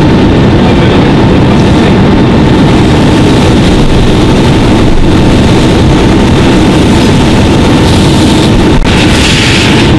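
Pickup truck fully engulfed in flames while firefighters attack it with a hose: a loud, steady rumbling noise of the fire, the hose stream and the fire engine running, with a faint steady whine. A brief knock comes about nine seconds in.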